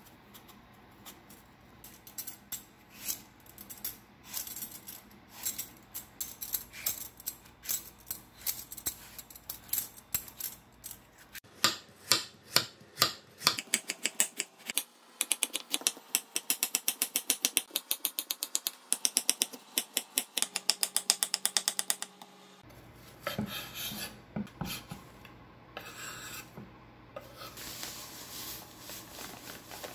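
A chef's knife cutting an apple on a wooden cutting board. First come scattered slicing strokes with clicks of the blade on the board. Then, about a third of the way in, comes a long run of rapid, even chopping, about five knife strikes a second, as the apple is diced small. Near the end, sugar is poured from a bag onto the diced apple in a pan, making a light hiss.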